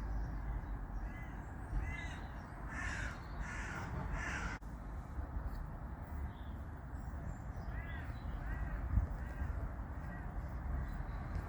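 A crow cawing repeatedly: a run of harsh caws in the first few seconds, then a pause, then a few more about eight to ten seconds in, over a steady low background.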